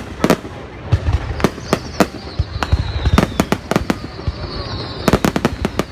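Fireworks going off: many sharp bangs at irregular intervals, with a rapid run of bangs near the end, over a faint high whistle that slowly falls in pitch.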